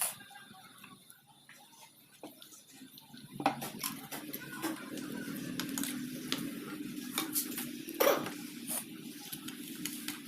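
Light metallic clinks and taps from small metal parts and tools being handled, with a sharp click at the start and louder knocks about three and a half and eight seconds in. A low, continuous scraping or rustling runs under them from about three and a half seconds on.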